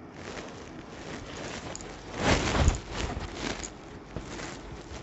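Chanderi sari fabric rustling as it is unfolded and draped, with a louder swell of rustling a little past two seconds in.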